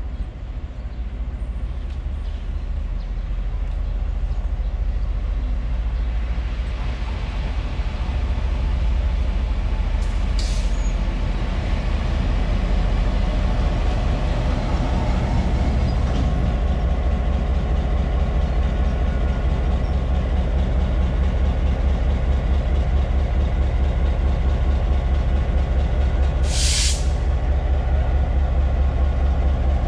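EMD G12 diesel-electric locomotive's 12-cylinder engine running with a deep steady hum, growing louder over the first several seconds as the locomotive draws up close and then holding steady. Two short hisses of released air cut through, one about ten seconds in and a louder one near the end.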